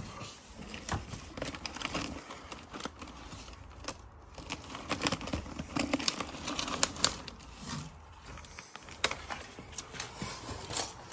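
Hands handling things at close range: crinkling and rustling with many small, irregular clicks and taps.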